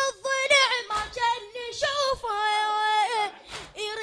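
A boy's high voice chanting a latmiya, a Shia mourning lament, unaccompanied into a microphone in long held, wavering lines. Two dull thumps fall between the lines, about a second in and near the end.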